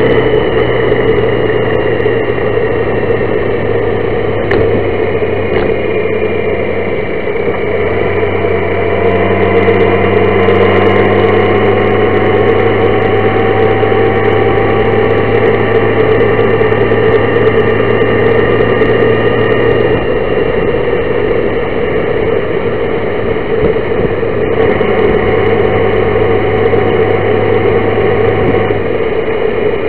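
Honda Gold Wing motorcycle cruising on the road: a steady engine hum mixed with wind and road noise, its tone shifting a few times and gliding slowly upward through the middle.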